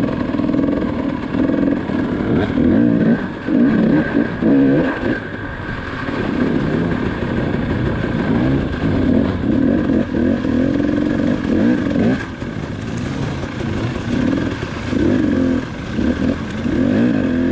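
KTM 300 XC-W two-stroke dirt bike engine, revving up and down repeatedly while being ridden off-road.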